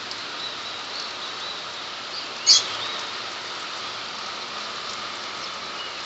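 Steady rain falling, an even hiss, with one short high chirp about two and a half seconds in.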